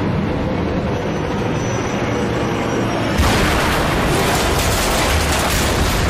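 Drone of a wartime twin-engine bomber's engines, then about three seconds in a sudden loud explosion as the ship is bombed. The explosion carries on rumbling with crackles.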